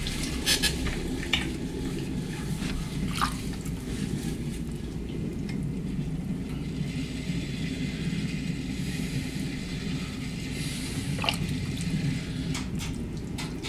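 Wet clay squishing and sliding under the hands on a spinning potter's wheel as the lump is coned up and pressed back down to homogenize it, with a few sharp clicks. A steady low hum from the wheel runs underneath.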